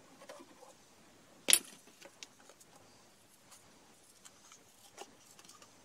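One sharp click about a second and a half in, then scattered light ticks and rustles as scissors cut a paper template, with a smaller click near the end.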